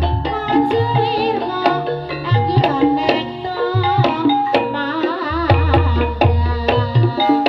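Javanese ebeg dance music: kendang hand-drum strokes under held, ringing gamelan notes, with a singer's wavering melody over the top.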